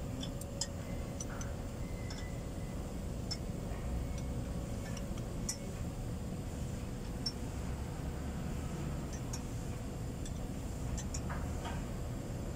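Scattered light metallic clicks and clinks from the valve gear of a truck diesel engine, its rocker arms being handled by hand, over a steady low background rumble.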